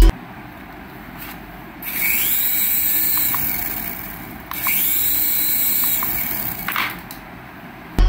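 The small electric motors of a toy RC helicopter, held in the hand, spin its rotors up twice for about two and a half seconds each. Each run is a whine that rises in pitch and then holds, over a whirring hiss, and cuts off at the end.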